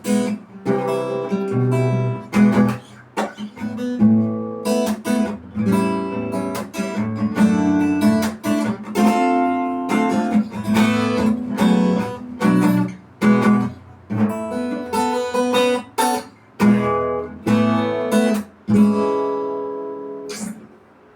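Acoustic guitar strumming a series of chords, each struck sharply and left to ring. The last chord, struck near the end, rings out and fades away.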